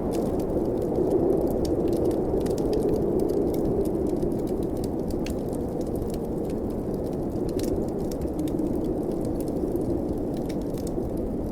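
Snowstorm wind blowing steadily, swelling and easing slowly, with the scattered pops and crackles of a wood fire over it.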